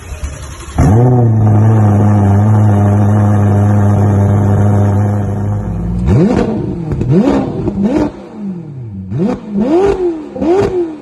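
Ferrari F8 Tributo's twin-turbo V8 starting up about a second in with a brief flare, then settling to a steady fast idle. From about six seconds in it is revved in a series of quick throttle blips, each rising and falling in pitch.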